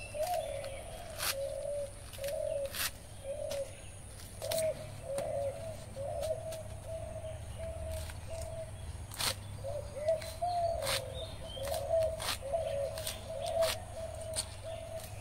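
A dove cooing over and over, in low wavering phrases. Short crisp clicks come at irregular intervals as spring onion stalks are sliced on a boti blade.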